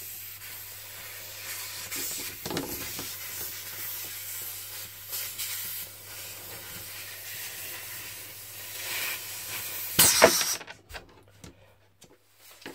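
A coiled airbrush air hose being uncoiled and handled, rubbing and rustling over a steady hiss, with a louder brief clatter about ten seconds in as it is set down.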